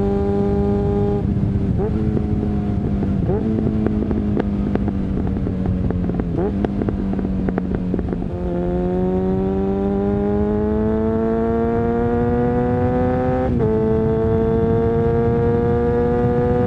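Suzuki Bandit 650's inline-four engine through a Mivv exhaust, under way: it runs fairly steadily with a couple of small dips in pitch, then about halfway through pulls steadily up in revs. A few seconds before the end the pitch drops suddenly at an upshift, and it pulls on again.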